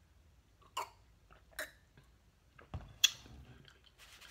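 Mouth sounds of drinking from a bottle of orange juice, with a couple of short swallows, then a low thump and a sharp click as the bottle is set down on the table about three seconds in.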